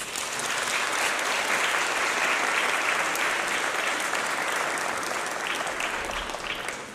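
Audience applauding with dense, steady clapping that swells in at the start and tapers off near the end.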